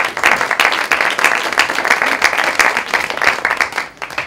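Audience applauding: many hands clapping in a dense, steady patter that cuts off abruptly near the end.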